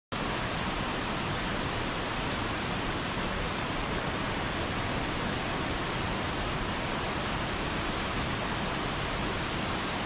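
Small forest waterfall pouring over rocks into churning white water: a steady, even rush of water.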